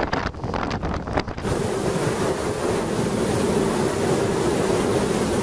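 Storm wind buffeting the microphone in uneven gusts. About a second and a half in it gives way to a steady, louder rush of wind with a low steady tone running through it.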